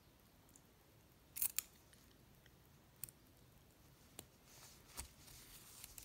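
Faint sharp clicks from a metal needle and a metal clasp purse frame being handled as yarn is stitched through the frame's holes: a close pair about a second and a half in, then single clicks near three, four and five seconds. A soft rustle of yarn being drawn through comes near the end.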